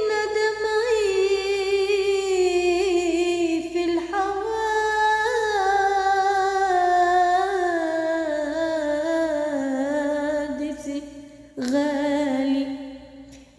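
Unaccompanied solo voice singing a long wordless melisma in Arabic tarab style, with no instruments. The line wavers with ornaments and slowly falls in pitch, with a brief break for breath near the end before it carries on.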